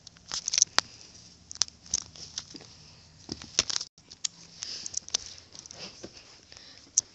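Handling noise: a string of irregular light clicks, taps and soft rustles as a small plastic toy figure is handled and moved about on carpet close to the microphone.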